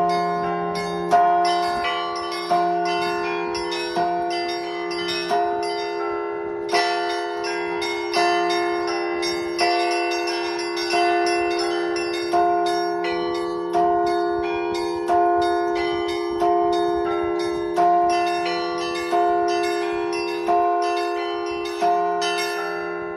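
Russian Orthodox church bells rung by one bell ringer. A big bell's accented stroke comes about every second and a half, and its ring is held under quick patterns of smaller chiming bells.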